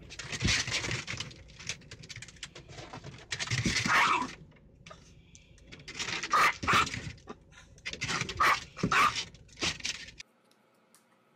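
Small dog barking in short, irregular outbursts at the moving windshield wipers, some louder clusters late on, then the sound cuts off suddenly near the end.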